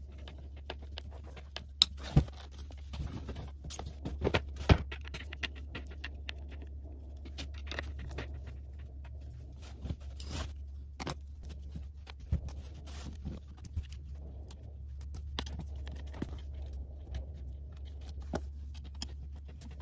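Hand screwdriver driving screws into metal brackets on wooden canvas frames, with the panels knocked and shifted as they are put together: scattered clicks, taps and knocks, a few louder knocks about two and five seconds in, over a steady low hum.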